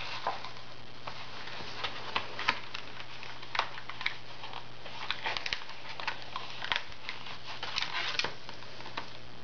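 Plastic Crayola Super Tips markers clicking against one another and their cardboard box as a hand rummages through them, with scattered irregular taps and rustles over a low steady hum.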